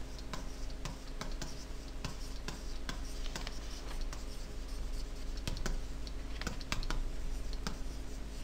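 Irregular light clicks and scratchy taps of a pen stylus on a graphics tablet, over a faint steady hum.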